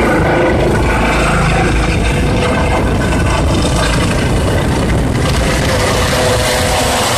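Eurocopter EC135 air ambulance helicopter flying overhead just after takeoff: its rotor and turbines give a loud, steady, dense noise.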